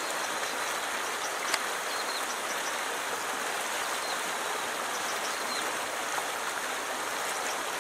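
Steady rushing of flowing river water, with a single sharp click about one and a half seconds in.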